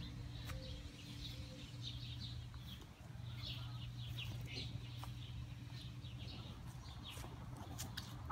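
Small birds chirping over and over, over a steady low hum, with a few sharp clicks.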